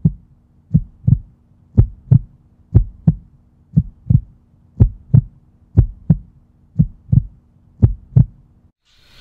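Heartbeat sound effect: paired low thumps, lub-dub, about one beat a second, over a faint steady hum. It stops shortly before the end.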